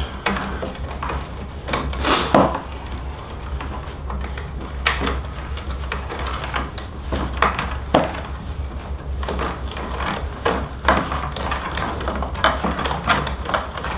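Rawhide lacing being unwound from the back of a hand-made frame drum: irregular scraping and rustling as the stiff hide thongs are pulled loose, with a few sharp clicks.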